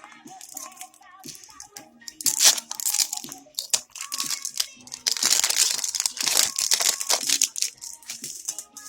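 A surprise toy's wrapper crinkling and tearing as it is opened by hand, in two busy spells: a short one a couple of seconds in and a longer one in the second half.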